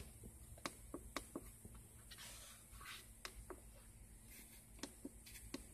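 Near silence with a faint steady low hum and a few scattered faint clicks of buttons being pressed on a Ford STAR Tester handheld diagnostic unit's keypad.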